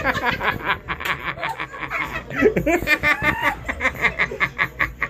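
Laughter: a fast run of short repeated pulses.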